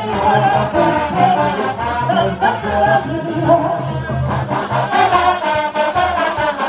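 Rara band playing: trombones and other brass horns carry a melody over a steady pulsing low bass beat, with voices singing along.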